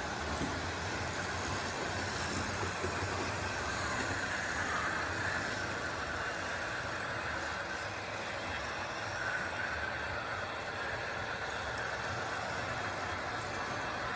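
American Flyer S-scale model train running on the layout track: a steady running hum and rumble of its motor and wheels.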